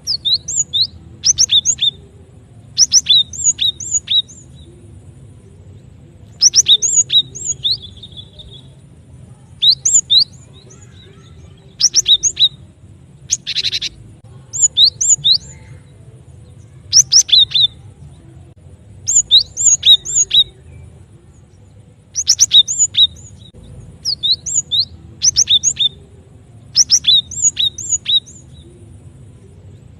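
Cinereous tit (glatik batu) calling: short bursts of two to four sharp, high chirps, repeated every second or two, from a bird-lure recording.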